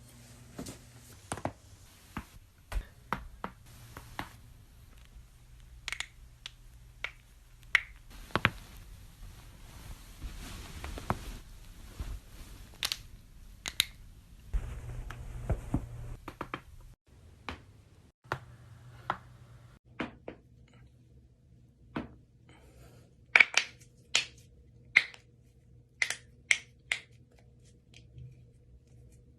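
Human joints cracking: a string of sharp, short pops and clicks at irregular intervals, the loudest a close run of about six pops about three quarters of the way through.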